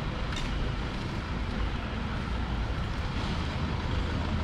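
Steady low rumble of road traffic in a city street.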